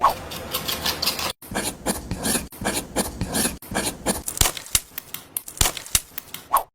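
Scraping and rasping of small hard objects, with many sharp clicks and taps, broken by several abrupt cuts.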